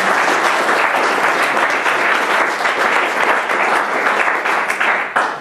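Audience applauding: a dense, steady round of clapping that cuts off quickly near the end.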